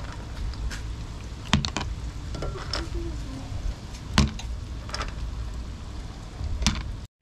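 Boiled periwinkle shells knocking against tongs and each other as they are lifted out of a pot and dropped into a cup: about half a dozen sharp clicks and knocks, a second or so apart, over a low steady background.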